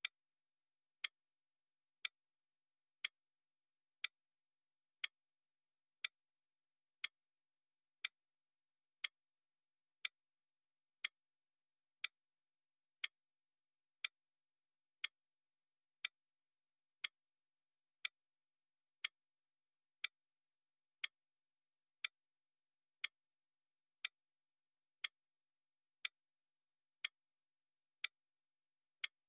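Clock-tick sound effect, one sharp tick every second with silence between, marking the seconds of a countdown timer.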